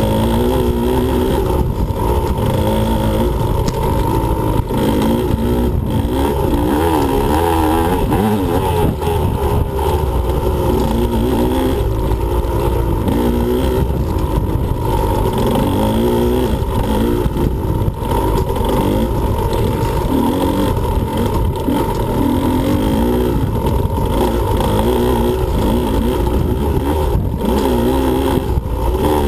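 2015 Husqvarna TE125 two-stroke enduro engine being ridden hard, revving up and down over and over, its pitch rising and falling every second or two.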